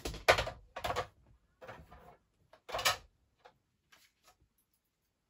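Cardstock and craft tools being handled on a work table: four short rustles and knocks in the first three seconds, then a few faint taps.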